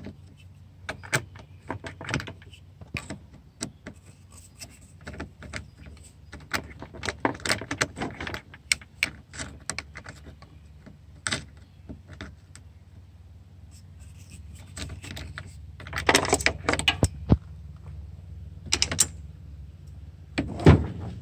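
Scattered clicks, taps and metallic jingling from a screwdriver and small metal parts being handled against a plastic headlight housing, busiest about three quarters of the way through, over a steady low hum.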